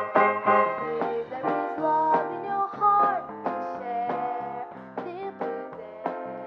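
Small jazz ensemble of violins, piano, bass and drums playing a jazz waltz, with bending melody notes over regular drum strikes.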